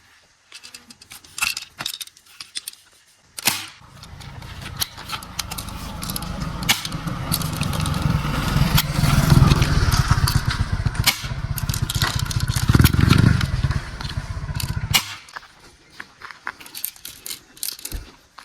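Toy gun's mechanism running with a steady, fast rattling buzz for about eleven seconds, starting a few seconds in and cutting off near the end, with plastic clicks and handling before and after.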